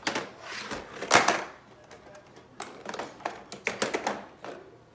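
Plastic toy vehicles knocking and clattering against each other and the wooden floor as they are handled: a few sharp knocks, the loudest about a second in, then a quicker run of clacks in the second half.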